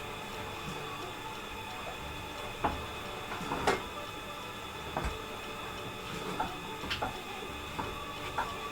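A cooking utensil knocking and scraping against a pot of pasta in tomato sauce while it is stirred: about half a dozen short, scattered clicks and knocks over a steady hum.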